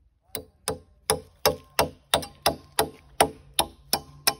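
Steady hammer blows, about three a second, fixing a galvanised steel wire-rack bracket to a wooden log pole. Each strike is sharp and leaves a short metallic ring.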